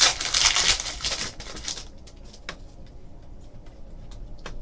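Trading cards and pack packaging handled by hand: a rustle for about two seconds, then a few light clicks and taps as cards are moved.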